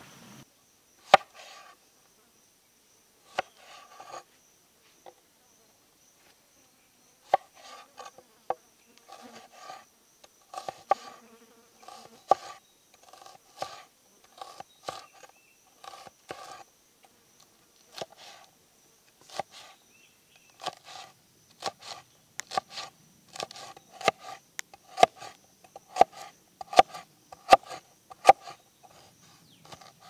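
Steel cleaver chopping onion on a wooden cutting board: sharp knocks with a short woody ring, sparse at first and then in a steady rhythm of about one or two cuts a second. A faint steady high insect drone runs behind.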